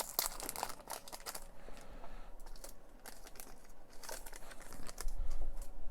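Trading cards being handled and slid off one another, a run of light rustles and clicks, with a dull low bump near the end.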